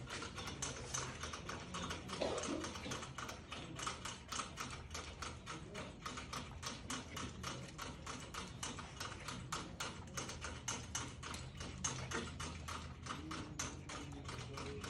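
Puppies' paws and claws tapping and scrabbling on a wire cage door and its slatted plastic floor: rapid, irregular clicking that runs on without a break.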